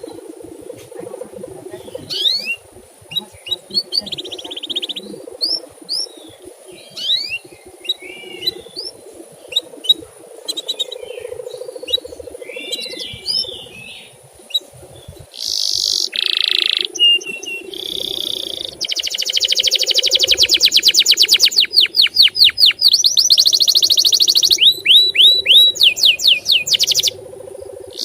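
Male canary singing: scattered short chirps and whistled notes, then from about halfway long, louder fast trills and rolls of rapidly repeated notes. A faint steady high tone and a low hum run underneath.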